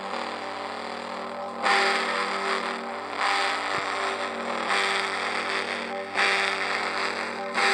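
Two church bells ringing, struck about every second and a half, five strikes in all, with the bells' tones ringing on steadily between strikes.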